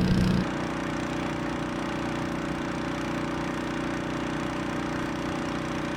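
A small engine running at a steady speed, a constant mechanical drone. A louder low hum drops away about half a second in.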